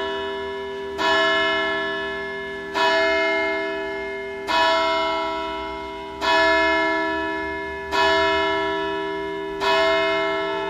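A single bell tolling on the same note, struck six times about every second and three-quarters, each stroke ringing on and fading before the next.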